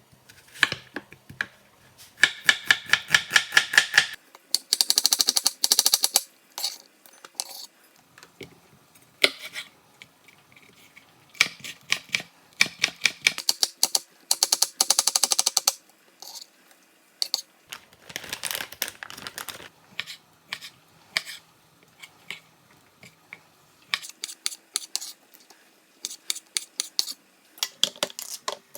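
Knife chopping quickly on a cutting board: runs of rapid, evenly spaced taps lasting a second or two, with single cuts and pauses between them.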